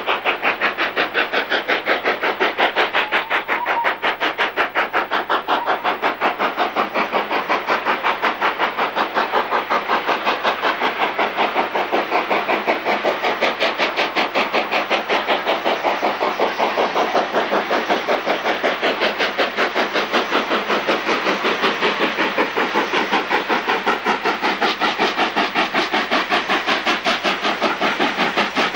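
Steam locomotive working hard under load, its chimney exhaust coming as fast, even beats, most likely LNER Q6 0-8-0 No. 63395, a two-cylinder freight engine.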